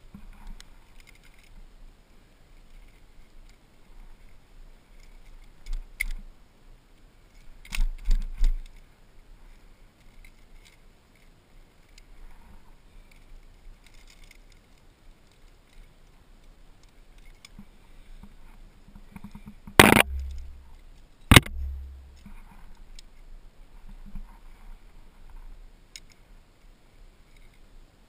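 Climbing gear clinking as a climber moves up a granite crack: carabiners and cams on the harness rack jangling, with scuffs on the rock. Two sharp, loud knocks come about two-thirds of the way through, each followed by a short low rumble.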